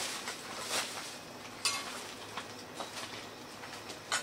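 Spoons and bowls clinking during a meal: a few short, sharp clicks and taps, the loudest about a second and a half in and just before the end, over a faint steady low hum.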